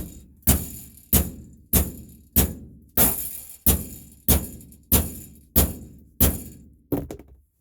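A hammer striking a hand punch to knock out rivets, about a dozen evenly paced blows, roughly three every two seconds, each ringing briefly. The rivets in the side wall are coming out hard.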